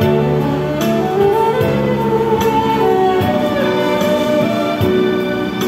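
Saxophone and erhu playing a slow melody together over a backing track with a bass line and a steady beat from a portable speaker.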